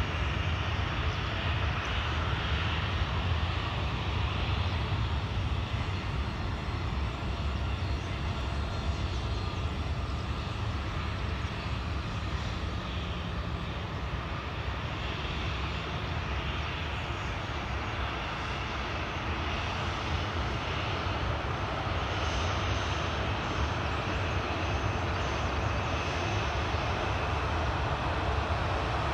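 Airliner engines running, a steady low rumble with a hiss that holds at an even level throughout.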